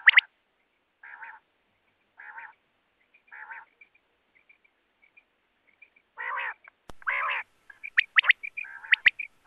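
Common quail (Coturnix coturnix) calling. The sharp three-note "wet-my-lips" phrase comes at the start and twice near the end. Between them are softer nasal notes about a second apart and two longer, louder nasal calls around six and seven seconds in.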